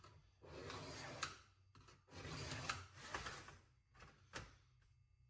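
A line being marked onto sheet metal: two faint rubbing strokes, each a second or so long, with a few light ticks in between and one near the end.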